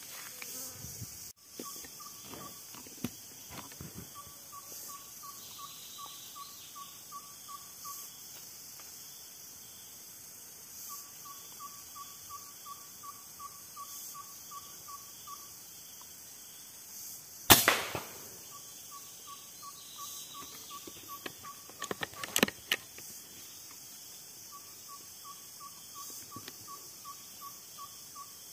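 A PCP air rifle fires once, a single sharp crack about two-thirds of the way through, and a short cluster of clicks follows a few seconds later. Behind it, a bird calls in long runs of evenly spaced single notes, about four a second, with pauses between the runs.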